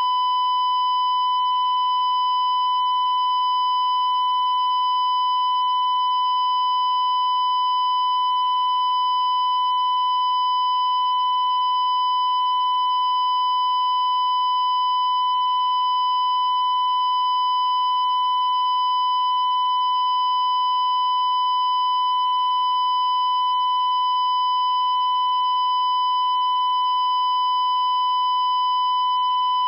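Steady 1 kHz broadcast reference tone held unbroken at one pitch, with fainter overtones above it: the line-up test tone a TV station plays around sign-on.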